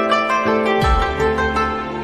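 Background music of quick plucked-string notes over a held tone, with a deep bass note coming in just under a second in.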